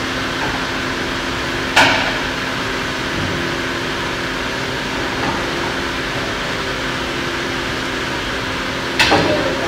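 Steady hum of dairy workshop machinery with a couple of low tones, broken by two sharp knocks, one about two seconds in and a second, followed by a few smaller ones, near the end.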